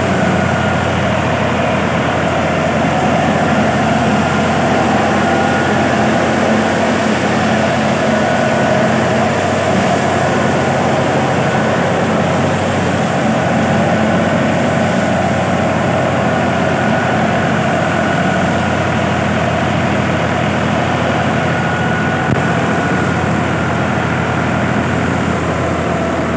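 Fiat tractor's diesel engine running steadily and loudly, with no clear revving up or down.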